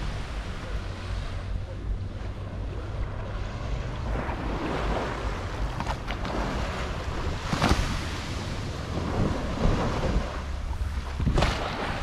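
Small waves washing onto a sandy shore, with wind rumbling on the microphone and a couple of louder swishes near the middle and end.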